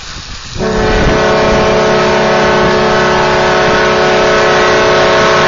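Train horn: one long, steady multi-note chord blast that starts suddenly about half a second in.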